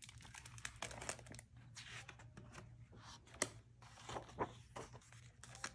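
Hardcover book being opened and its paper pages turned by hand: soft rustling and crinkling of paper, with a few sharper page flaps and taps.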